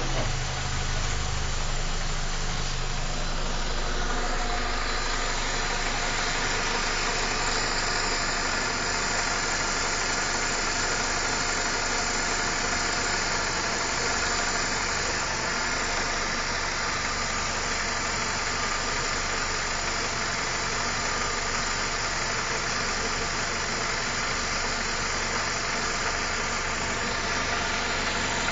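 BMW E46 318i's N42B20 four-cylinder engine idling steadily just after being started.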